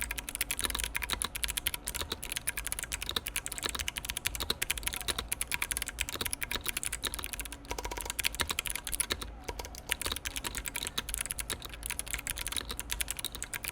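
Fast, continuous typing on a 60% mechanical keyboard with clicky Kailh Box White switches in an aluminium case and plate: a rapid run of sharp keystroke clicks, several per second, pausing briefly about nine seconds in.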